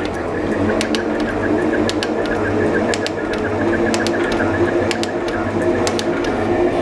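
Elliott 10M metal shaper running, its ram stroking back and forth with a steady machine hum and occasional sharp clicks. It runs really quiet after the owner's improvements to the machine.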